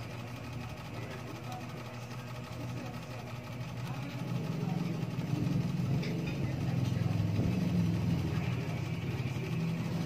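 A steady low hum that grows louder about four seconds in.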